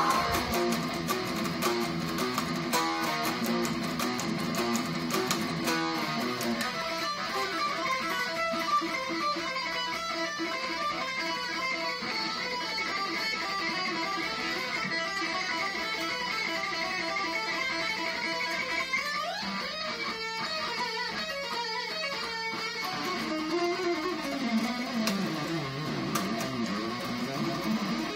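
Electric guitar playing an instrumental passage of held notes, with one note gliding up in pitch about two-thirds of the way through and a wavering, bent note dipping near the end.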